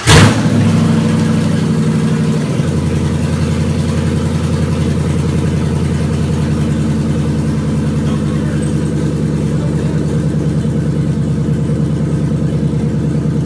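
Chevrolet 6.2-litre LS V8 on open headers, with no exhaust, catching with a loud flare and then idling loudly and steadily. The idle steps down slightly about two and a half seconds in.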